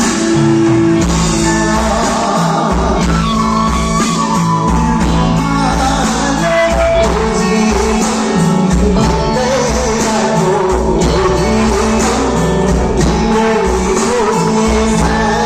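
Live band playing a song with singing over a steady drum beat and sustained bass.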